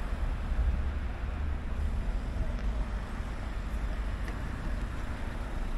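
Steady low rumble of street traffic, with wind on the microphone.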